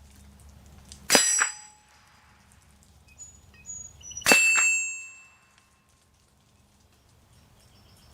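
Two .22 LR shots from a Mossberg 715T rifle about three seconds apart, each followed a split second later by the ringing ping of a steel target being hit, the second ring lasting longest.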